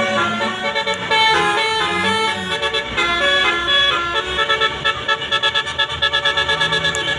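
Bus's Basuri multi-tone 'telolet' horn playing a tune of stepping notes, then switching about four seconds in to a fast stutter of short repeated notes, about five or six a second.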